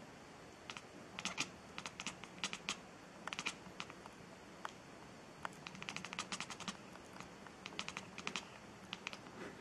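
Domestic cat chattering: short runs of rapid clicks from the jaw and teeth, several bursts with brief pauses between them.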